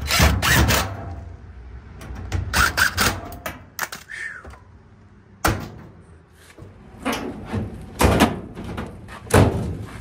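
A cordless impact driver briefly backs out a screw, then a run of sharp knocks, clatters and thumps from the Maytag Bravos XL dryer's sheet-metal front panel being lifted off and moved, the heaviest thumps coming in the last few seconds.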